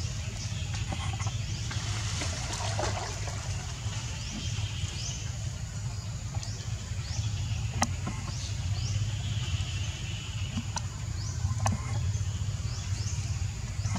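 Outdoor ambience: short high chirps repeating every second or so over a steady low hum, with a few sharp clicks.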